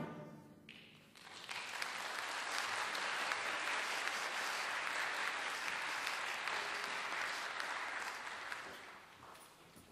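The wind band's last chord dies away in the hall's reverberation, then audience applause starts about a second in, holds steady, and fades out near the end.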